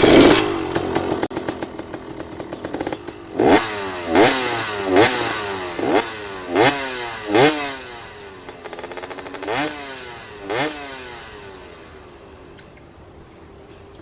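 Enduro motorcycle engine revved in a series of sharp throttle blips, the pitch jumping up and dropping back each time, after a loud burst at the start; the engine sound fades away near the end.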